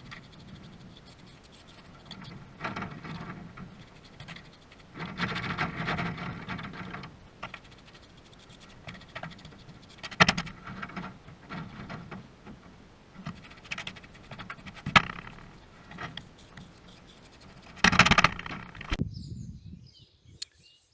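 Trowel scraping and working wet sand-and-cement mortar on a chimney top, in uneven strokes with a few sharp taps, the loudest near the end; it stops suddenly about nineteen seconds in.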